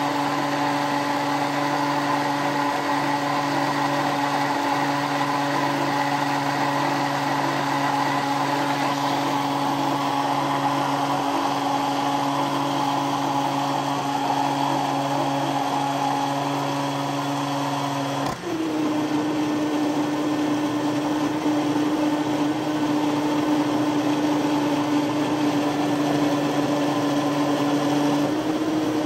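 Electric blender motor running steadily while blending puppy food into mush; about two-thirds of the way through it cuts out for a moment and comes back at a slightly higher pitch.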